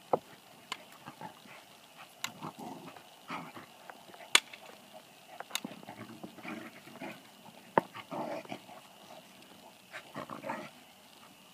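A beagle and a black Lab–bluetick hound mix playing rough on grass: short bursts of scuffling and dog vocal noises come every second or two, with scattered sharp clicks.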